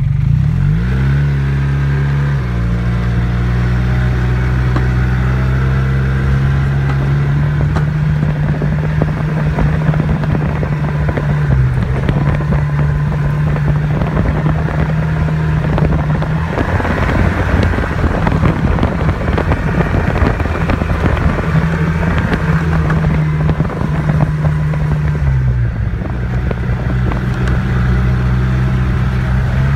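Snowmobile engine running under way, its pitch rising as it pulls away, then holding steady with small rises and dips in engine speed.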